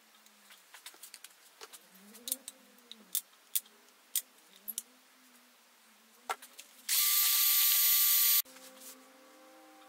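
Several sharp clicks from an epoxy dispensing gun as two-part epoxy is pushed from its cartridge into a plastic cup. Then, near the end, a cordless drill runs for about a second and a half with a steady whine, mixing the epoxy in the cup.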